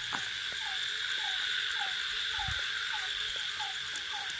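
Night animal chorus: a short, slightly falling call note repeated just under twice a second, typical of a calling frog, over a steady high drone of insects. There is a single soft low thump about two and a half seconds in.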